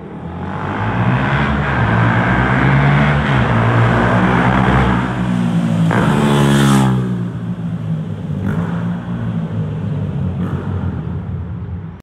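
Single-cylinder four-stroke engine of a Yamaha YZF-R125 with an aftermarket Scorpion exhaust, accelerating as the bike rides past. It grows louder and climbs in pitch, is loudest at about seven seconds in as it passes close, then drops away quickly as it pulls off.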